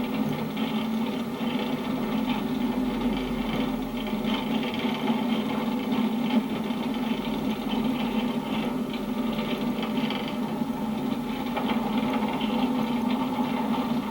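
Car engine and road noise heard from inside a moving car: a steady low hum with a constant run of small clicks and rattles.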